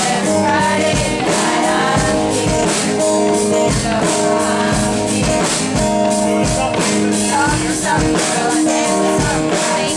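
A live band playing a rock song at a sound check: a voice singing over guitar and drums with a steady beat.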